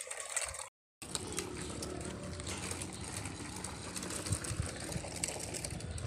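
Plastic toy vehicles being dragged in a chain over rough asphalt, their small wheels rolling with a steady scraping rattle full of little clicks. The sound cuts out briefly just before a second in.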